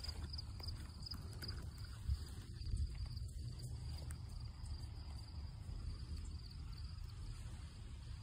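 Insects chirring steadily at a high pitch, faint, over a low rumble on the microphone.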